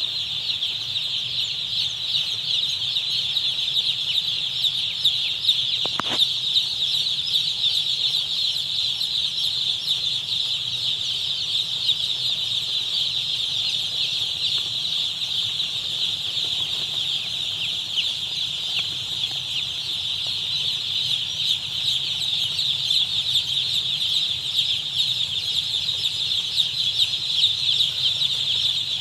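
Thousands of newly arrived broiler chicks peeping together in a dense, steady chorus, with a faint low hum underneath.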